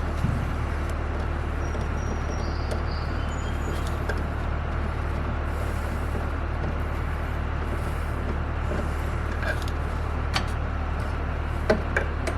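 A steady low mechanical hum, with a few short, sharp clicks and taps of hand tools and metal near the end as the screws come out of the refrigerator's control-board cover.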